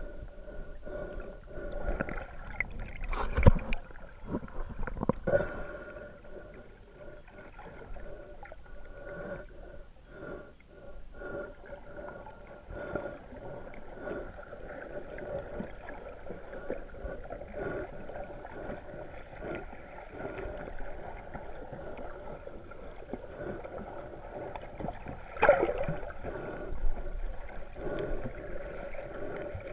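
Muffled underwater sound of shallow seawater heard through a submerged camera: uneven surging and gurgling water. A few sharp knocks stand out, the loudest about three seconds in and another near the end.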